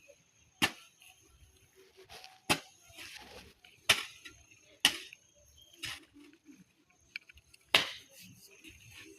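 A series of sharp knocks, about six blows at irregular intervals roughly a second apart, like hammer blows on a construction site.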